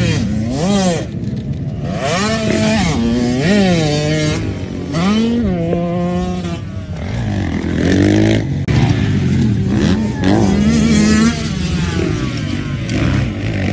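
85cc two-stroke motocross bike ridden hard, its engine revving up and dropping back again and again as it shifts through the gears.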